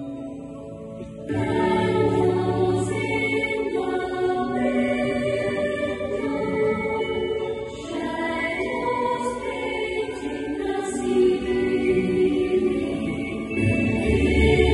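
Music with a choir singing, which comes in fuller and louder about a second in.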